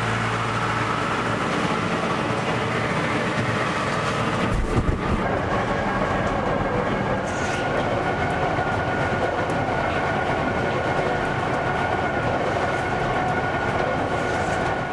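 Tractor-driven vertical-auger feed mixer wagon running steadily, its machinery clattering and humming under load as it mixes feed, with a heavy thump about five seconds in.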